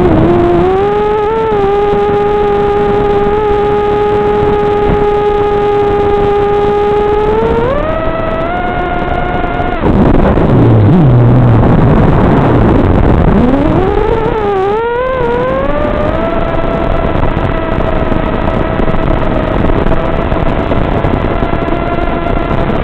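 Vortex FPV racing quadcopter's brushless motors and propellers whining, a steady pitch that steps up about seven seconds in as the throttle rises. Around ten seconds the motors drop away under a rush of air as the throttle is cut, then they spool back up over a couple of seconds and hold a higher steady whine.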